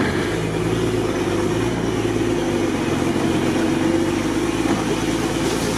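Truck engine running steadily under load while towing a drowned, dead-engined UAZ jeep out through deep water.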